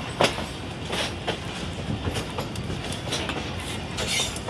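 A passenger coach of the Millat Express rolling along the track, heard from aboard: a steady rumble of the wheels with several sharp clacks as they cross rail joints, the loudest shortly after the start.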